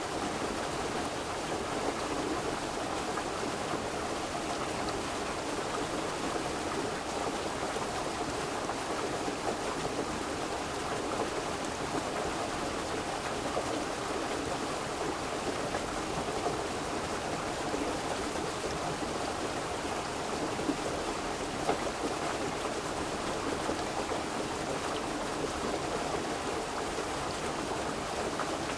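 Steady rushing water of a flowing river, an even, unbroken wash of sound with no distinct drops or splashes.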